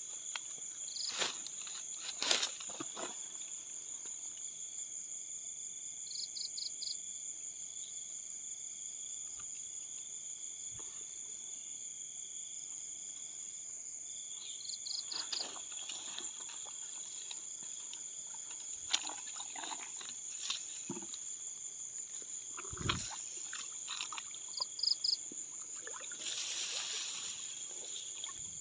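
Night insect chorus: crickets trilling steadily and high, with a short burst of quick chirps three times. Scattered clicks and rustles of grass being handled, and a louder rustle near the end.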